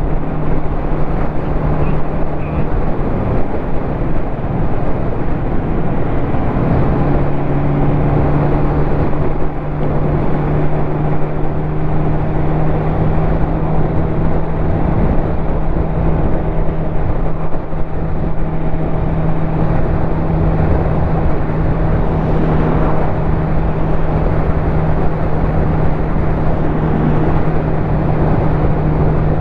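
Ducati motorcycle engine running at a steady cruise under a constant rush of ride noise. Its note wavers a few seconds in, then holds at an even pitch.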